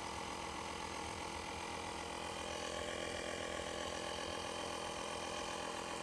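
Bergmann 2-in-1 car vacuum cleaner's tyre-inflator compressor running with a steady hum, heard from inside the car while it pumps air into a tyre.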